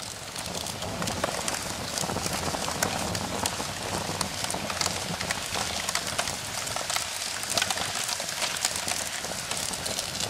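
A large open fire burning, a steady rushing noise with many sharp crackles and pops.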